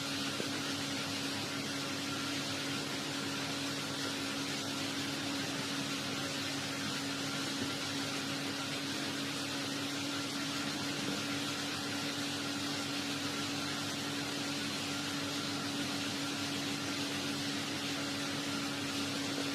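Steady background hum and hiss, unchanging throughout, with one constant low tone.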